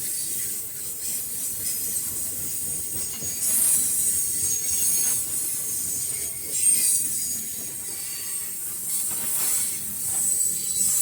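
Freight train box cars rolling past on steel wheels: a steady high rushing of wheels on rail, with thin high-pitched wheel squeals coming and going.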